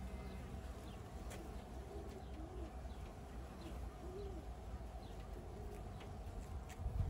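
Honeybees buzzing as they fly in and out of the hive entrances, a faint steady hum. Birds call in the background, including a few low coos in the middle and faint high chirps.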